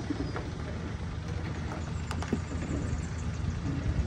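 4x4 ute's engine running at low revs with a steady low rumble as the truck holds on a steep rock step, with a few faint clicks and knocks about two seconds in.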